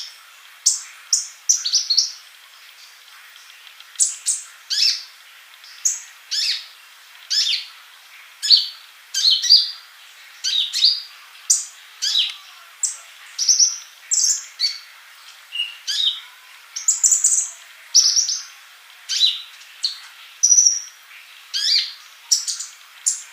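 Male sunbird (the 'kolibri ninja') singing: a string of short, sharp, high chirps and twitters, about one or two a second, with a brief pause a couple of seconds in.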